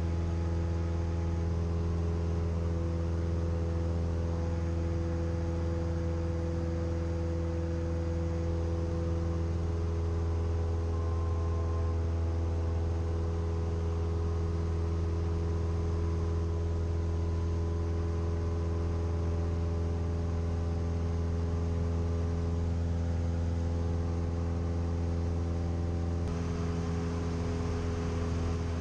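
Cessna 172M's four-cylinder Lycoming O-320 engine and two-blade propeller running at steady cruise power, a constant low drone heard inside the cabin. The tone shifts slightly near the end.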